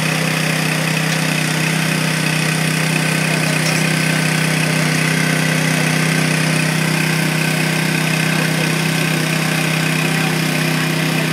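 Small petrol engine of a hydraulic rescue-tool power unit running steadily at constant speed, a continuous engine drone with no change in pitch.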